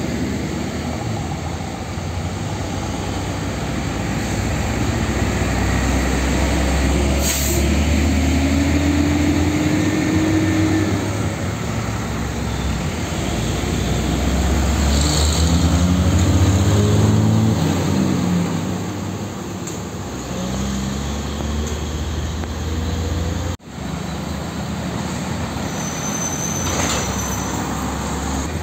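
Heavy diesel trucks driving past at close range in road traffic, their engines rumbling and rising and falling in pitch as they pull through. Short sharp hisses come through about seven seconds in, about fifteen seconds in and near the end.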